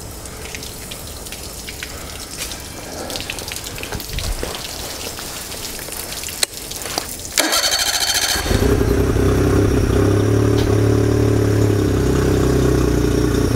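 A 2004 Honda BF40 four-stroke three-cylinder outboard starts for the first time since it was sunk. After a few clicks, the starter cranks about seven seconds in, the engine fires within a second, and it then runs steadily.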